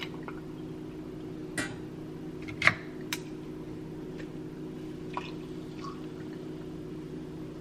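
Espresso and then frothed milk poured over ice into a glass jar, with a few sharp clinks as the glass is handled; the loudest clink comes about two and a half seconds in. A steady low hum runs underneath.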